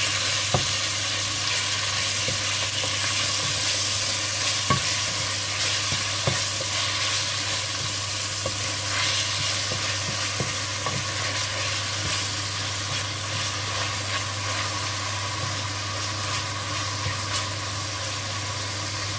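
Diced meat and onions sizzling in olive oil in a square nonstick frying pan, stirred with a wooden spoon that scrapes and knocks against the pan now and then. A steady low hum runs underneath.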